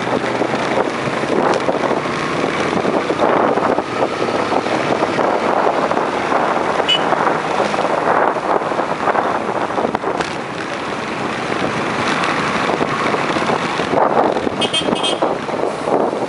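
Riding noise on a Yamaha Enticer 125 motorcycle moving through city traffic: a steady rush of wind over the microphone mixed with the running engine. Near the end come a few short, high beeps.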